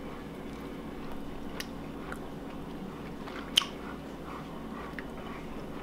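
A person chewing a bite of smoked rabbit meat: soft, wet mouth clicks, one sharper click about three and a half seconds in, over a steady low hum.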